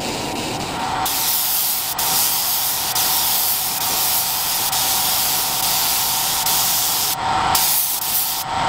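Gravity-feed paint spray gun spraying paint with a loud, steady hiss of compressed air. It starts about a second in and cuts off briefly twice near the end.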